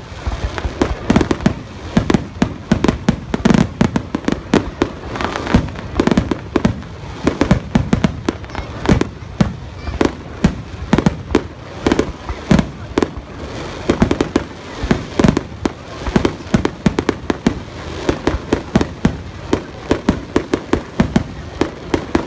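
Aerial firework shells bursting in a rapid barrage: many sharp bangs a second with deep booms, with no letup.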